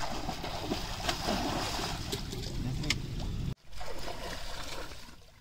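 A steady rushing outdoor noise with a heavy low rumble and faint voices in it. It cuts off abruptly about three and a half seconds in, then returns more quietly.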